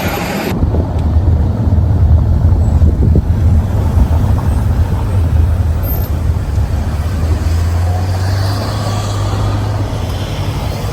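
Steady low rumble of a road vehicle driving, starting suddenly about half a second in.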